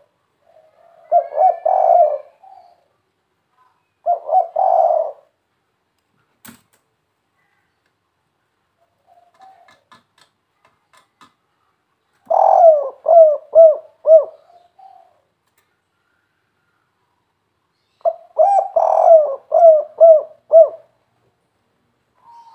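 Spotted dove of the 'kuk 3' call type cooing: four separate phrases of low coos, the later two ending in a quick run of short falling notes.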